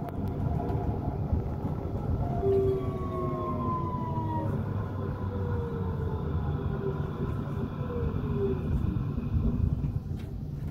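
Frankfurt tram running with a steady low rumble, its electric drive whining in several tones that fall slowly in pitch as it slows into a stop. Heard from inside the car.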